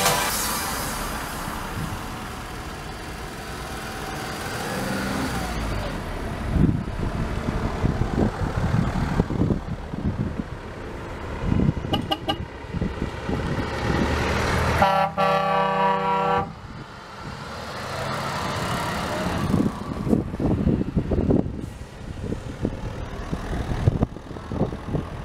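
Cars and a truck drive slowly past one after another with their engines running. A vehicle horn gives a short toot about halfway through, then a longer blast of about a second and a half a few seconds later.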